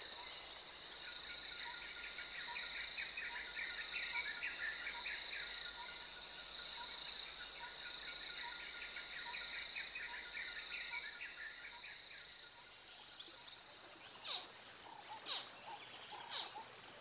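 Natural wildlife ambience: a chorus of chattering bird calls over a steady, high-pitched insect drone, with a short note repeating at an even pace. The chatter fades after about twelve seconds, and several sharp, high chirps follow near the end.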